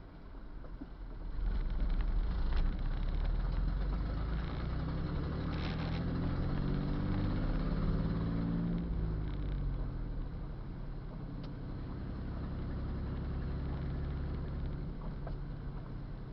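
A motor engine running close by, its rumble swelling about a second and a half in, its pitch stepping up and then back down in the middle before it settles to a steadier drone.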